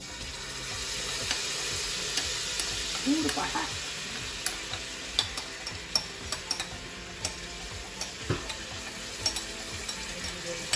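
Watery curry mixture poured into hot oil in a pan, sizzling steadily with frequent sharp pops and spits. A spoon scrapes the last of the mixture from a bowl into the pan.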